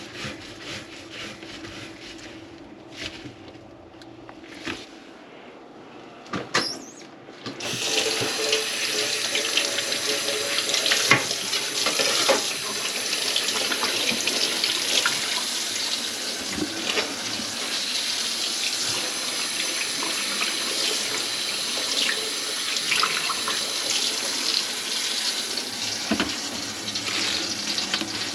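Kitchen faucet turned on about a quarter of the way in, water running steadily into the sink, after a few light knocks and handling sounds.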